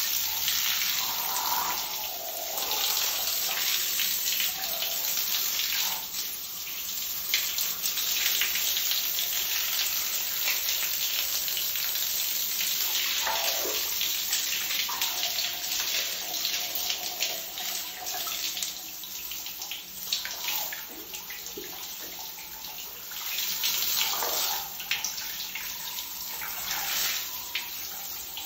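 Shower spray splashing onto sock-covered feet and a tiled shower floor, a steady hiss of running water that swells and eases as the spray moves.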